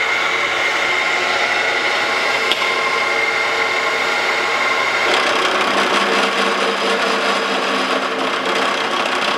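Wells Index vertical milling machine spinning a carbide-insert shell mill at about 300 rpm as the table feeds. About halfway through the cutter starts a light 0.050-inch face-milling pass across the top of a tool post holder, and the sound grows noisier.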